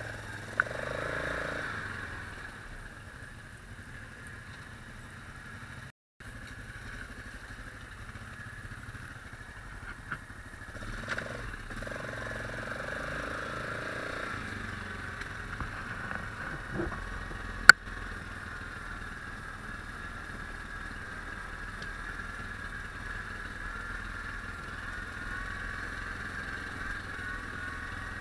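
ATV engine running steadily as the quad rides a rough dirt trail, heard from on board the machine. The sound drops out briefly about six seconds in, and a single sharp click, the loudest moment, comes a little past halfway.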